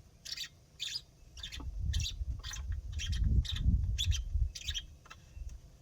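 A bird chirping, short high chirps repeated about twice a second. Low rumbling handling noise swells in the middle as a garden hose is fitted to the pressure washer's inlet.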